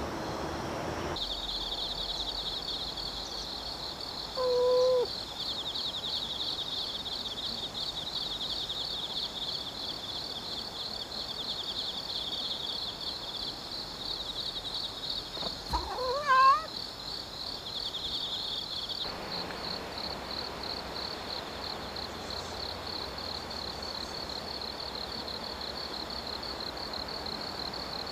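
A chorus of insects trilling, a high, fast-pulsing drone that starts about a second in. Over it a cat meows twice, once briefly early on and again, louder and rising, past the middle.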